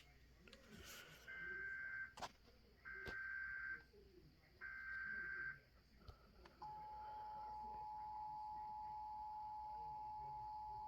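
Illinois Emergency Alert System test: three short bursts of the digital SAME header warble, each about a second long, then a couple of seconds later the steady two-tone EAS attention signal (853 and 960 Hz) starts and holds.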